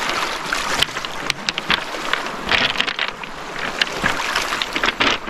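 Small waves lapping and washing over a pebble shore, with quick splashes and little clicks of water among the stones.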